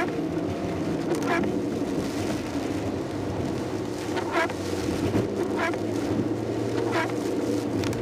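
Inside a Suzuki Swift driving through heavy rain: the engine hums steadily over the noise of tyres on the wet road and rain on the car. Windscreen wipers sweep with a short swish about every second or two.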